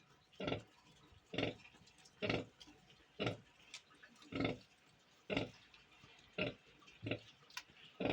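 Pig grunting in a steady rhythm, short low grunts about once a second.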